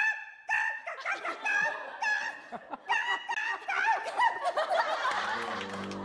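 A woman's vocal crow impression, quick repeated 'kka-kka' caws that dissolve into laughter. A steady low tone comes in near the end.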